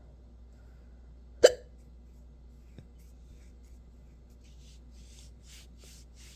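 A person hiccuping: one loud, sharp hiccup about a second and a half in, followed near the end by a few soft breathy sounds.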